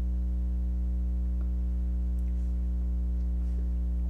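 Steady, unchanging low drone of ambient background music, a sustained chord with no beat, with a couple of faint ticks.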